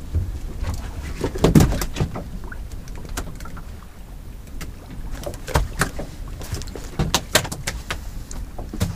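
Scattered knocks and clicks on a small open boat as a fish is handled over the side, over a steady low rumble of wind and sea.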